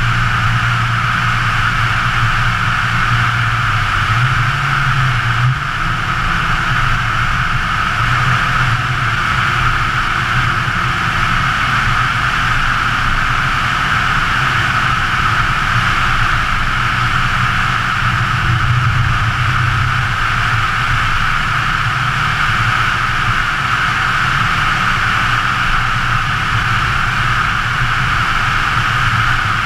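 Scion FR-S's flat-four engine at cruising speed, a low steady drone that shifts in pitch a few times as the revs change, under a constant rush of wind and road noise on the outside-mounted camera.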